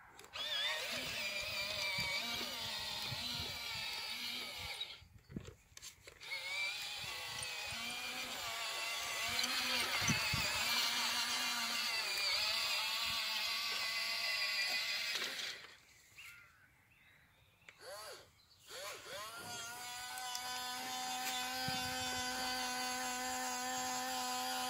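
Electric drive motors and gearboxes of a 1/12-scale Hobby Engine RC crawler crane whining as it moves over rough ground, the pitch wavering with the throttle. It stops briefly about five seconds in and for about three seconds past the middle, then runs on at a steady pitch near the end.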